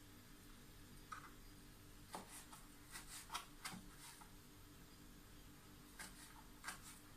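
Faint, scattered taps of a knife blade cutting dried prunes on a plastic cutting board. The light knocks come in a cluster between about two and four seconds in and again near the end.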